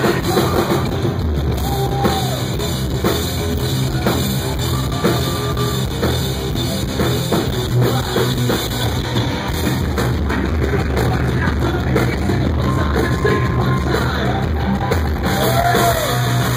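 Live rock band playing loud, with electric guitar, bass guitar and drum kit, and a sung vocal over them, heard from within the audience.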